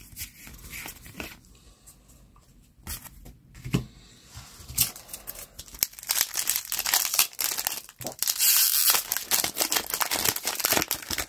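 Quiet handling of trading cards with a few soft clicks, then from about halfway a foil Pokémon booster pack wrapper crinkling and being torn open, loudest near the end.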